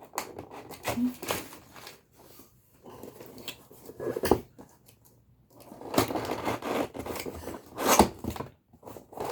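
Packaging being handled while a new laptop is unboxed: irregular scraping and rustling of cardboard and plastic, with a sharp knock about four seconds in and another about eight seconds in.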